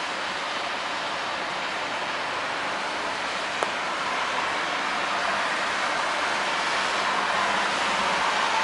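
Steady city traffic noise on a wet street, an even hiss that grows a little louder about halfway through. A single sharp click comes about three and a half seconds in.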